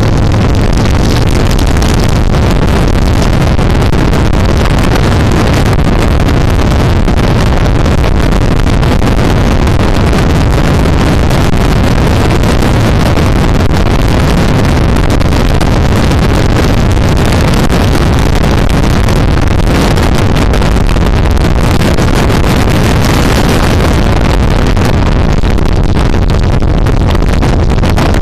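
Wind rushing loudly and steadily over the microphone on a moving motorcycle, mixed with the motorcycle's running engine.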